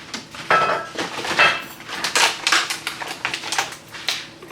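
Food containers and jars clattering and knocking as they are taken out of a refrigerator and set down, a quick irregular series of knocks and rattles.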